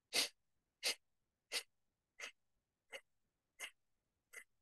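Kapalbhati breathing: a run of sharp, forceful exhalations through the nose, seven short puffs at a steady pace of about one and a half a second, the first the loudest.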